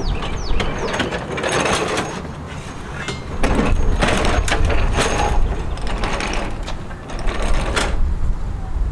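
Walk-behind lawn mower being pulled out of a car's hatch and rolled down homemade metal channel ramps onto a concrete driveway: its wheels rumbling on the ramps, with metal clanks and rattles.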